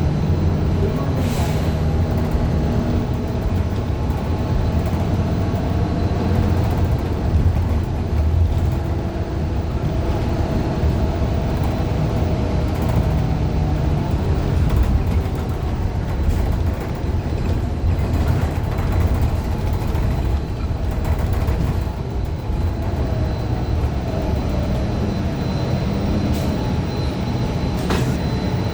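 Cabin sound of a 2015 Gillig Low Floor 40-foot CNG bus under way: the Cummins Westport ISL G engine and drivetrain running with a steady low rumble, a few brief rattles or clicks, and a thin high whine near the end.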